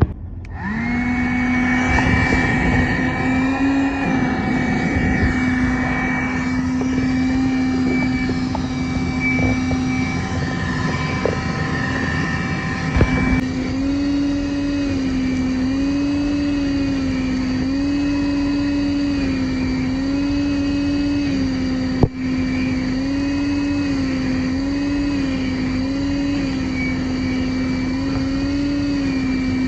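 Road Pro 12-volt wet/dry canister vacuum starting up and running with a steady motor whine. From about halfway its pitch repeatedly rises and falls, and there is one sharp click about three quarters of the way through.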